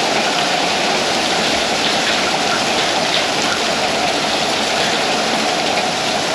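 Heavy rain pouring down in a steady dense hiss, mixed with little tiny hail that bounces all around.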